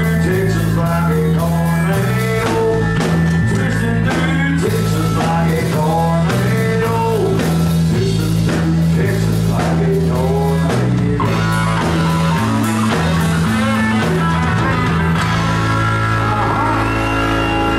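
Live outlaw country band playing: guitars, bass and drum kit, with a melodic lead line over steady, changing bass notes. A long high note is held near the end.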